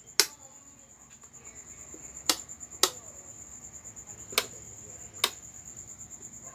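A steady high-pitched insect trill, with five sharp clicks at irregular intervals over it.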